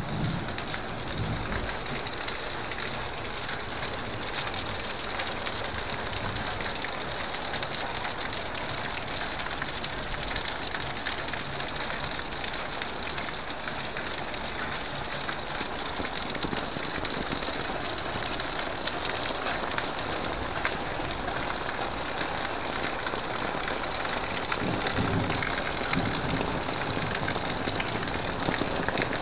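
Heavy rain falling steadily on leaves, ground and puddles.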